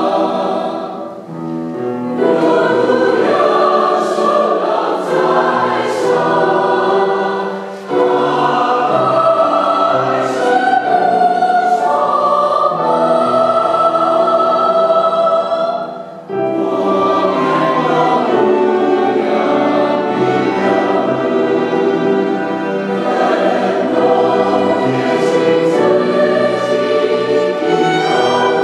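Mixed church choir singing with a small string ensemble of violins and cellos accompanying. There are short breaks between phrases about 8 and 16 seconds in.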